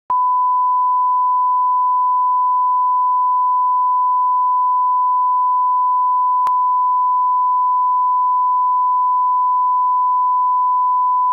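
A steady, unbroken single-pitch test tone, the line-up reference tone placed at the head of a commercial's broadcast master, with a faint click about six and a half seconds in.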